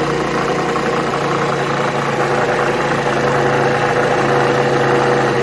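Four-stroke 50 cc single-cylinder engine of a Qingqi QM50QT-6a (Rex RS450) scooter idling steadily with a rattle. The owner hears it only at idle and suspects the seven-year-old drive belt or the clutch and variator.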